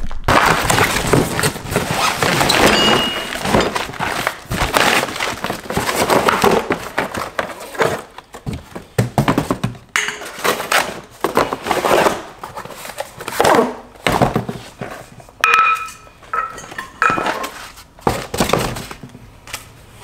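Cardboard box being torn open and unpacked: flaps and cardboard inserts ripping, scraping and rustling, with many dull thunks and a few short squeaks about two thirds of the way through.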